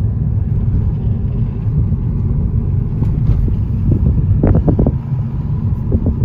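Car running along the road, a steady low rumble of engine and road noise heard from inside the cabin.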